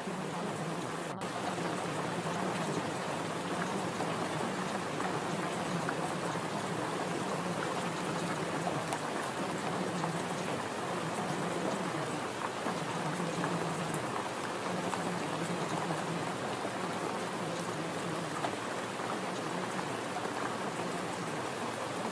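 Steady rain falling, an even hiss of drops with no breaks.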